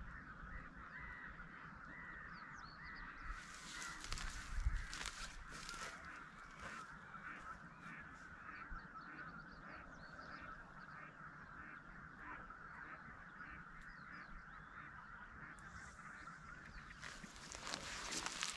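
A large flock of water birds calling continuously in a dense chorus. A few sharp knocks sound about four to five seconds in and again near the end.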